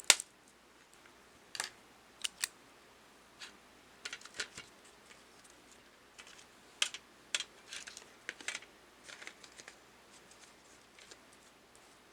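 Small magnetic metal pieces and plastic attachments of a fidget pen clicking and clacking as they are handled and fitted back into their box, in scattered sharp clicks, several in quick pairs, the loudest just at the start.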